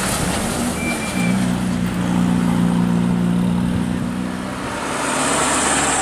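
Tour bus's diesel engine running as the bus passes close by, with road noise. A steady low engine hum comes in about a second in and fades away near the five-second mark.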